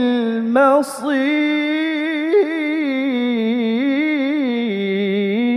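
Male Qur'an reciter chanting in the melodic tilawah style, holding the long ornamented final notes of a verse with the pitch wavering up and down. There is a short breathy hiss about a second in, and the voice dips to a lower note near the end.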